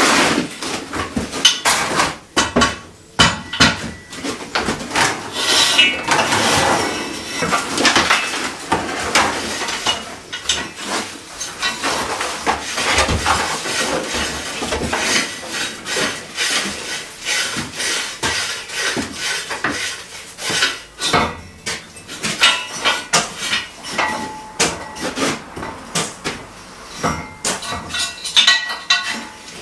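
Steel Acrow props clanking and clinking as they are carried, lifted and adjusted: repeated metal-on-metal knocks and rattles, with brief ringing at times.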